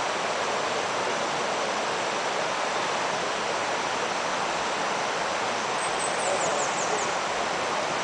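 Steady rush of a rocky river running over stones and rapids. Near the end, a short run of about five quick, high falling whistles sounds over it.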